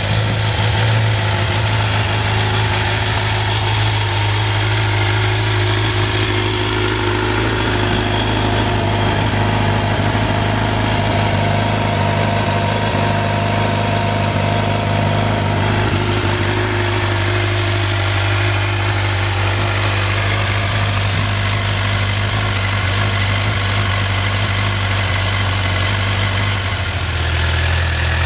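2011 Suzuki GSX-R750 inline-four engine idling steadily through its stock exhaust.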